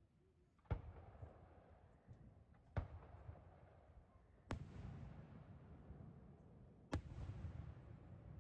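Four aerial firework shells bursting, about two seconds apart. Each is a sharp boom followed by a rolling rumble that trails off.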